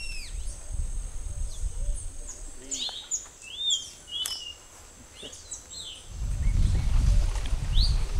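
Several birds calling: short arched and sliding whistled notes, busiest in the first four seconds, over a steady high-pitched hum. A low rumble on the microphone comes in about six seconds in and is the loudest sound near the end.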